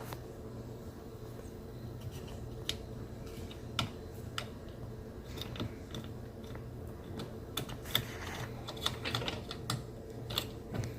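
Dishwasher rack and plastic parts being worked loose by hand: scattered sharp clicks and rattles, busier toward the end, over a steady low hum.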